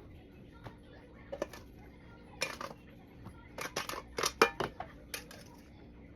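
Irregular clicks and clatter of kitchen utensils and dishes being handled as food is portioned out, busiest in a run of knocks past the middle.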